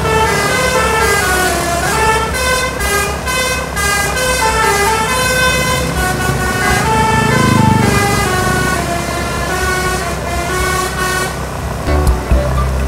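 Basuri telolet multi-tone bus horn playing a tune, its notes stepping up and down one after another, with a low rumble swelling underneath about halfway through.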